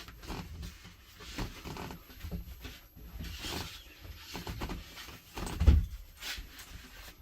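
Irregular handling noises of hardware being worked by hand, rustling and knocking, with one heavier low thump about five and a half seconds in.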